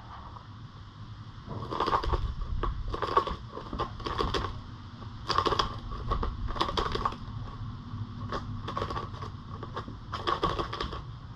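A Netherland Dwarf rabbit digging at a corrugated-cardboard cat-scratch toy, its paws scraping the cardboard in irregular bursts of scratching that begin about a second and a half in. The sound is muffled by the camera's case.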